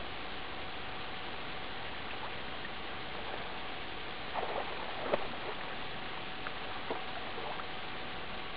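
Water splashing and sloshing as a swimmer in a soaked down jacket pushes through a river, with a few louder splashes around the middle, over a steady hiss and a faint hum.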